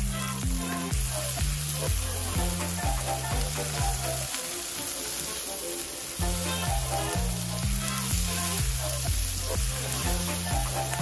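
Shrimp frying in butter in a pan, sizzling steadily as a silicone spatula stirs them. Background music with a stepping bass line plays underneath and drops out for about two seconds in the middle.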